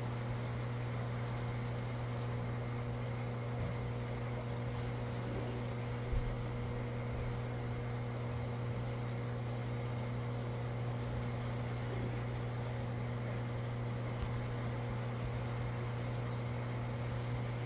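Aquarium filter pump running with a steady hum over a hiss, and a soft knock about six seconds in.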